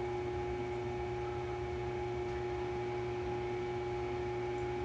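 Steady background hiss with a constant low hum and a few faint steady tones: room tone with no distinct sound event.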